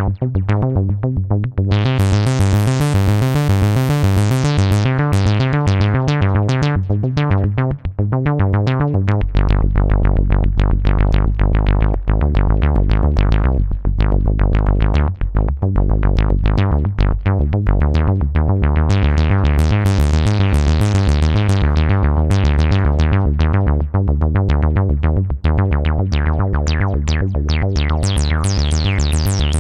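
Modal Cobalt 5S synthesizer playing a fast rhythmic sequence over a bass line, its filter opening into bright sweeps a couple of seconds in and again in the second half. A deep sustained bass comes in about a third of the way through and gives way to a pulsing bass later on.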